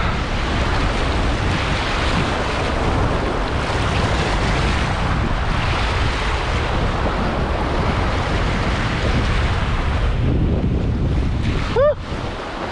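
Sea waves surging and breaking over rocks, with wind buffeting the microphone. Near the end, a single short pitched squeak sweeps once.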